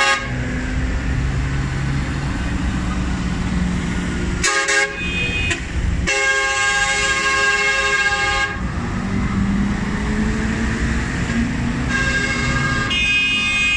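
Diesel engines of large tractors running as they drive past one after another, with horn blasts over them: a short one about four and a half seconds in, a long one of about two and a half seconds starting around six seconds, and another near the end.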